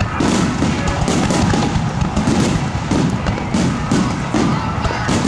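Aerial fireworks shells bursting in quick succession, a run of booms and bangs at about two or three a second.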